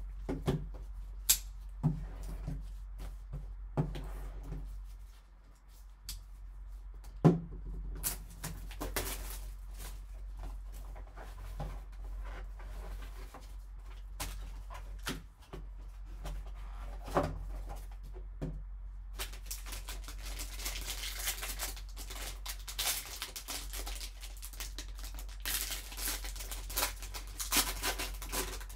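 Trading-card box and card holder handled with a few sharp clicks and knocks, then a foil pack wrapper crinkling and tearing through the second half, over a low steady hum.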